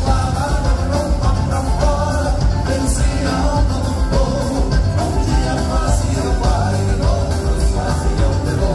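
Live gaúcho dance band music: piano accordions, electric guitars, bass and drums playing a steady dance beat, with a male lead voice singing over them.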